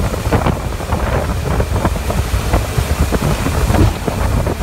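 Wind buffeting the microphone on a moving motorboat, over the boat's running engine and the churning water of its wake.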